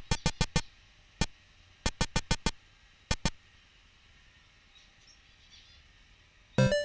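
Runs of sharp, quick clicks over a faint hiss: about five in half a second, one on its own, six more, then three, followed by a few quiet seconds.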